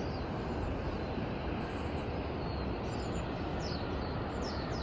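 Steady rush of wind on the microphone, with a few short, high bird calls in the second half.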